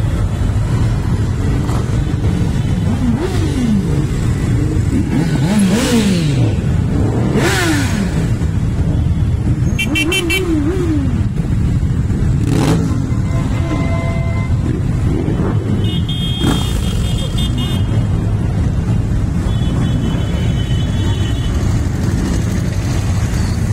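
Many motorcycle engines running as a procession of bikes, quads and trikes rides slowly past in a column, a steady dense rumble with several riders revving up and down. A few short high beeps, like horn toots, cut in now and then.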